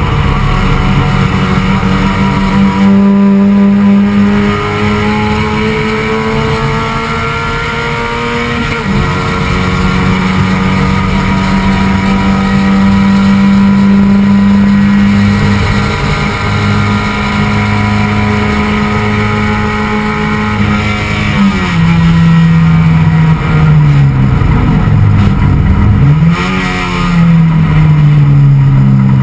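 Touring race car's engine heard from inside the cabin, running hard at high revs. Revs climb, drop sharply with an upshift about nine seconds in, and hold steady for a long stretch. Past twenty seconds they step down in a series of dips and quick rises, downshifts under braking, before the engine pulls again near the end.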